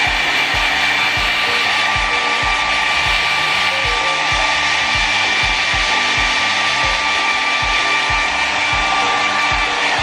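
Kris 600-watt travel hair dryer running continuously and blowing hard, a steady rush of air with a high motor whine. Light background music with a steady beat plays underneath.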